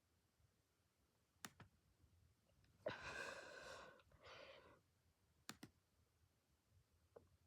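Very faint room sound with a few sharp clicks and a soft breathy rush of air, like an exhale, in the middle.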